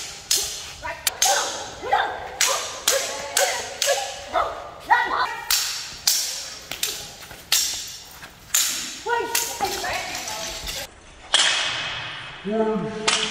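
Blades clashing again and again in fast sword-and-machete sparring: sharp clanks about two a second, several ringing briefly after the strike.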